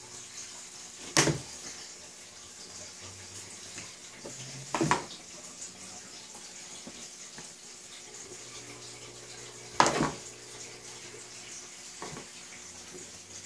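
Three sharp knocks, about one, five and ten seconds in, from hands working dough against a metal baking pan, with a fainter knock near the end. They sound over a steady hiss and low hum.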